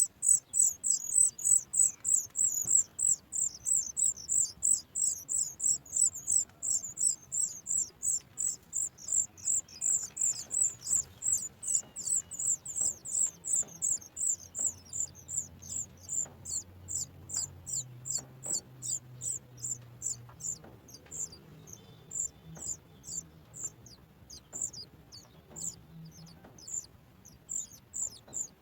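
Sooty chat nestling begging for food: a rapid train of short, high, thin calls, each slurring downward, about three or four a second, thinning out and turning irregular in the second half.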